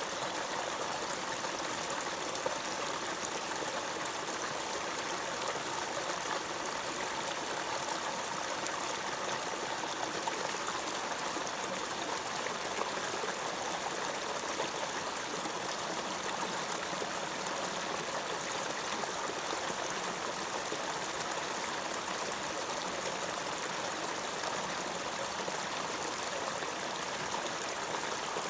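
Running water flowing steadily, a continuous even rush and trickle.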